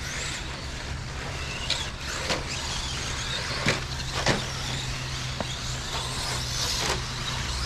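Electric 1/10-scale RC stadium and short course trucks racing on a dirt track: high wavering motor whine and tyre noise over a steady low hum, with several sharp knocks from the trucks.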